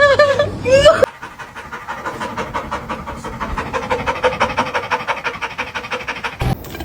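A dog's wavering, pitched vocal calls for about the first second, then rapid, rhythmic dog panting, many breaths a second, until it cuts off shortly before the end.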